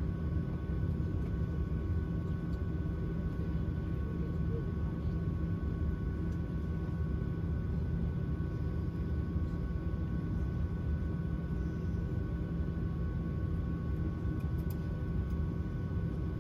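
Steady cabin noise inside a Boeing 737-700 with its CFM56 engines running: an even low rumble with two steady whining tones over it.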